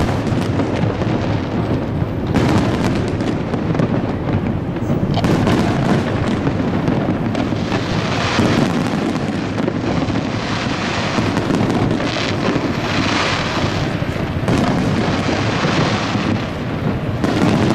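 Aerial firework shells bursting in a rapid, continuous barrage of booms and bangs, with a stretch of denser crackling in the middle.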